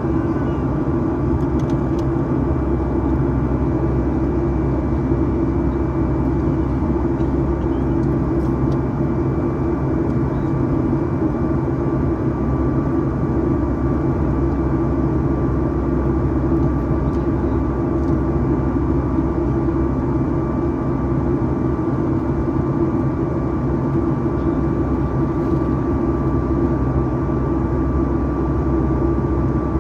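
Steady cabin noise inside a Boeing 737 MAX 8-200 in flight: an even drone of its CFM LEAP-1B engines and rushing air, with a thin constant whine above it.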